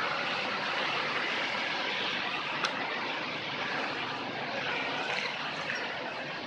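Suzuki Baleno engine running with the AC compressor engaged, giving a steady, rough drone. The growl is put down to defects in the compressor's piston and block. There is a single sharp click a little before halfway through.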